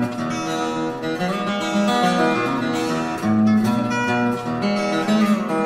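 Background music: an acoustic guitar instrumental with picked notes running over moving bass notes.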